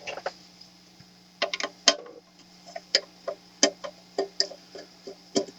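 Scattered light clicks and taps at uneven intervals, about a dozen, as the casing and small parts of an 858D hot-air rework station are handled during disassembly, over a faint steady hum.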